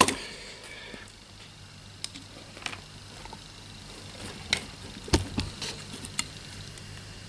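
Scattered small clicks and knocks of tools and parts being handled while an electronic component is tested, with a firmer thump about five seconds in, over a faint steady hum.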